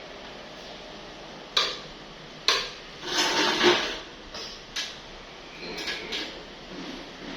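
Hard objects being handled: several sharp clicks and knocks, with a short scraping rattle about three seconds in.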